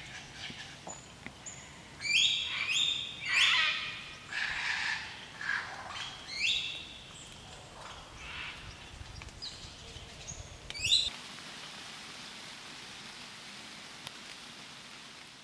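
Superb lyrebird singing: a run of loud, varied calls with rising and falling whistles, busiest and loudest through the middle. A last sharp call comes about eleven seconds in, after which only a steady hiss remains.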